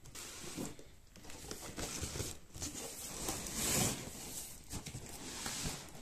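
Cardboard box of a mixer grinder being handled and opened: irregular rustling, scraping and crinkling of cardboard and packing, loudest about four seconds in.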